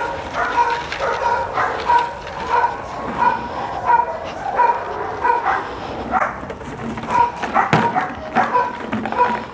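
A dog barking over and over at an even pace, about one bark every two-thirds of a second. A few sharp knocks come in the second half, the loudest near the end, as a plastic jug filled with stones hits the ground.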